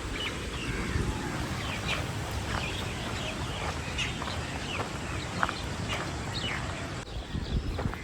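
Several birds chirping, many short high chirps overlapping throughout, over a steady low background hum.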